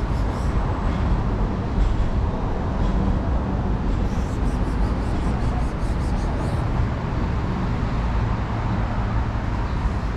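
Steady low rumble of street traffic noise, with a few faint light ticks now and then.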